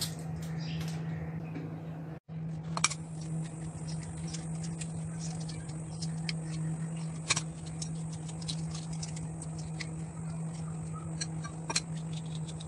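Hard-boiled eggshells crackling and clicking as they are peeled by hand, with a few sharper cracks. A steady low hum runs underneath.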